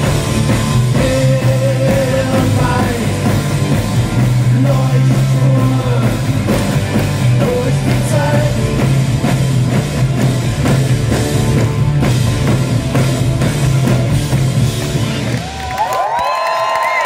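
Live rock band playing loudly with singing, heard from within the open-air audience. The song ends about fifteen seconds in and the crowd starts cheering.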